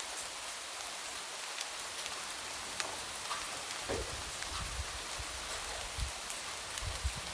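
Light rain falling steadily, a soft even hiss with scattered drops tapping against a window pane and a few faint low thuds.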